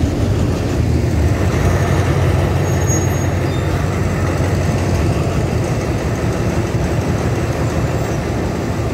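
Diesel-electric locomotive of the Alsthom AD24C class (No. 4146) standing at the platform with its engine idling, a loud, steady low hum.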